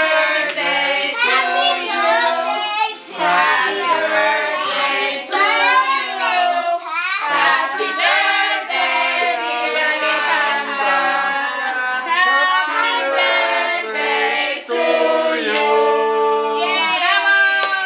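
Children's voices singing a song, the melody running on without a break.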